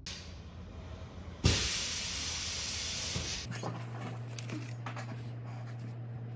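A steady hiss that jumps louder with a thump about one and a half seconds in, then cuts off suddenly a couple of seconds later. After it come faint rustles and taps of paper and pencil on a desk.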